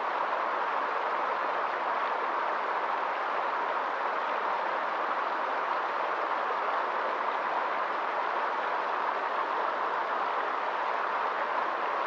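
Small mountain stream tumbling over rocks in little cascades: a steady rushing of water with no change.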